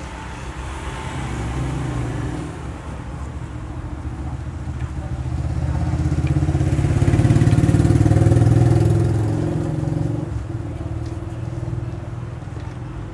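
A motor vehicle engine running as it passes by, a low rumble that swells to its loudest about seven to nine seconds in and then fades away.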